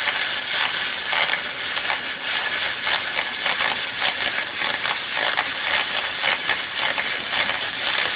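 Electric welding arc crackling and sizzling steadily, with rapid irregular pops.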